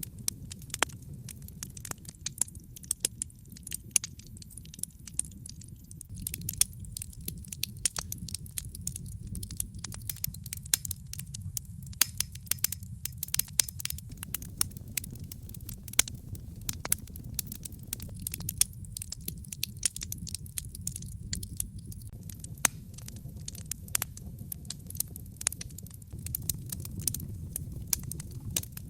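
Wood fire in a fireplace crackling, with many sharp irregular pops and snaps several times a second over a low, steady rumble of the burning flames.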